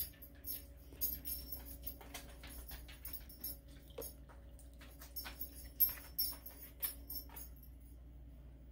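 Hot water from an electric kettle poured slowly into a glass tea-brewing cup over loose-leaf tea: an irregular trickle of light splashes and clinks that stops about seven and a half seconds in.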